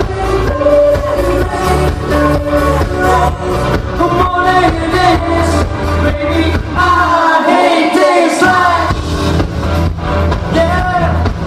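Live pop performance: a man singing into a microphone over an electronic dance backing with a heavy, steady bass beat. Near the middle the bass drops out for about a second and a half while the voice holds a rising line, then the beat comes back.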